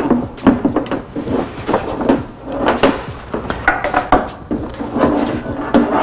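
Hands handling audio gear and cables, plugging a Bluetooth receiver's lead into a small mixer: irregular knocks, clicks and clatter, several a second.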